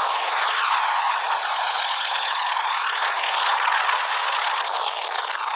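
Helicopter in flight heard from aboard: a steady rushing noise with a slow, swirling phasing quality and no distinct rotor beat.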